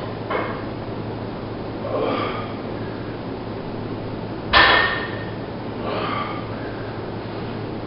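Loaded barbell during a deficit deadlift: one sharp metallic clank with a short ring about halfway through as the bar comes up, with softer breathy sounds from the lifter before and after, over a steady hum.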